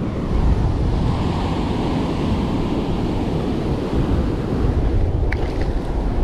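Ocean surf washing up the beach and swirling around the feet in the shallow wash, a steady rush of water, with wind buffeting the microphone.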